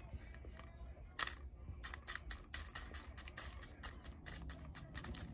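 Many small light clicks of tiny toy cereal pieces being tipped from a small plastic bag into a miniature bowl, with a slightly louder click about a second in.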